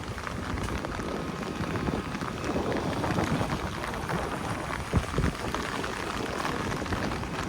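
Steady rain falling and spattering on wet city surfaces, with one short, louder low thump about five seconds in.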